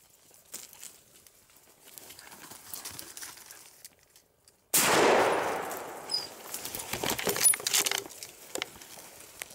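A sudden loud burst of noise about halfway through, trailing off over a second or so. Then scattered clicks, crackles and rustling of twigs and dry leaves close by.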